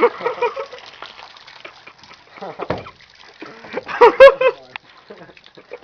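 Rainwater dumped from a sagging tarp splashing and splattering onto the floor. Excited voices break in at the start and again loudest about four seconds in.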